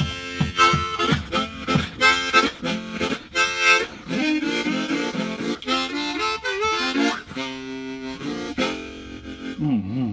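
Harmonica music: short rhythmic chords at first, then longer held chords, and a bent note near the end.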